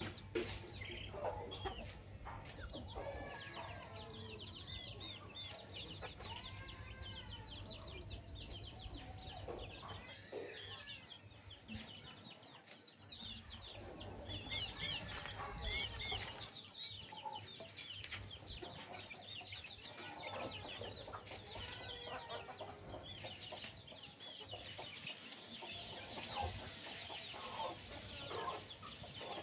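Chickens clucking, over a constant stream of quick, high chick peeps.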